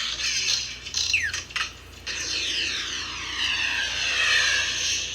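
Electronic rocket-blast sound effect from a Toy Story toy: a hissing jet-like rush with a sweeping, phasing whoosh, after a short falling zap about a second in.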